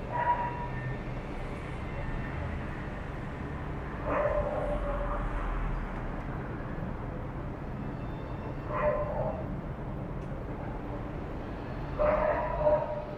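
Dog barking: four widely spaced calls, each drawn out for under a second, at the start, about four seconds in, about nine seconds in and near the end.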